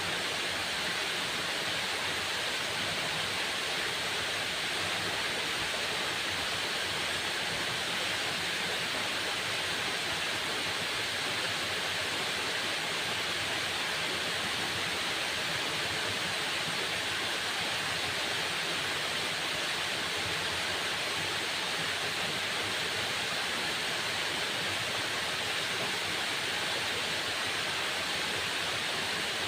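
Waterfall: falling water making a steady, unchanging hiss.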